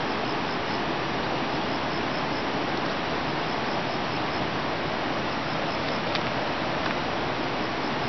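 Steady nature ambience: an even hiss with a faint, rapid, evenly repeated high chirping, like insects, running through it, and a single click about six seconds in.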